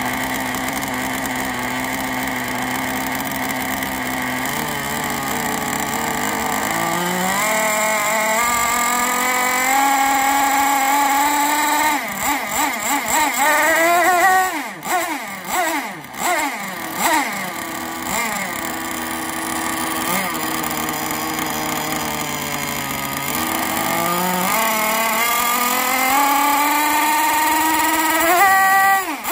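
CMB Evo 45 two-stroke glow engine in a model rigger hydroplane, running out of the water. It runs steadily, climbs in revs, is blipped up and down several times about halfway through, then settles and climbs again near the end.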